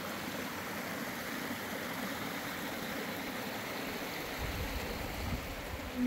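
Mountain creek running steadily, an even rush of water. A low rumble joins in about four seconds in.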